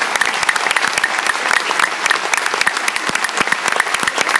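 A large audience applauding, with dense, steady clapping.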